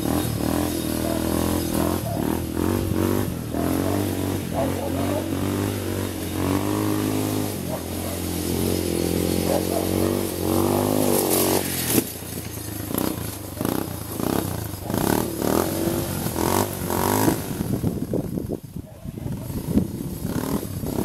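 An ATV engine running off to one side, its pitch rising and falling as it is revved. About twelve seconds in it stops abruptly with a sharp knock. After that come irregular clattering knocks.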